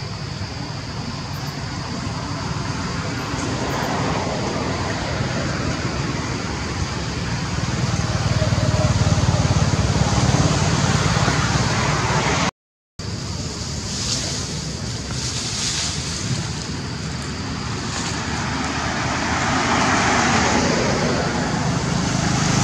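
Steady rushing outdoor noise with a brief dropout about halfway through; near the end it swells as a vehicle passes along the road.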